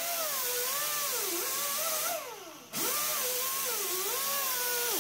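Grinder with a cutting blade slicing a slot in a steel bumper. Its motor whine wavers and dips in pitch as the blade loads up in the cut. About two seconds in it winds down, then it comes back up to speed with a sudden rise a moment later.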